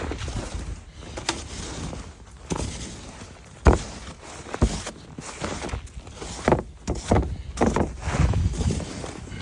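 Irregular knocks and thumps, with some scraping, from hands and tools working to open an access into a crawl space; the sharpest knock comes a little under four seconds in.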